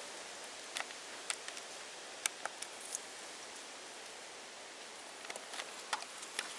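Steady outdoor hiss with scattered short, sharp scratches and clicks, a few early and a cluster near the end: a tabby cat's claws gripping and scraping tree bark as it climbs.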